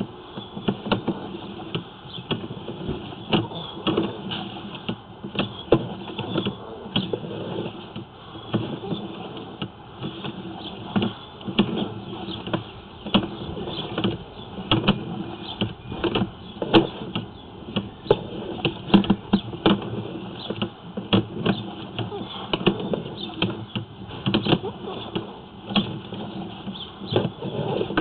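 Sewer inspection camera being pulled back through the drain line, the push rod and camera head knocking and scraping with irregular clicks and clatter.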